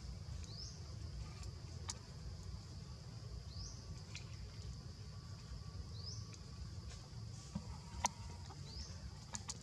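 Outdoor forest ambience: a steady high insect drone, with a short rising chirp repeating about every two and a half seconds, over a low rumble. A few sharp clicks come through, the loudest about eight seconds in.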